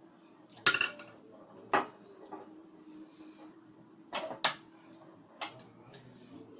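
Sharp metallic clinks and knocks, about five in all with a pair close together after about four seconds, from tools and metal parts being handled while disconnecting the wiring of a ceiling fan.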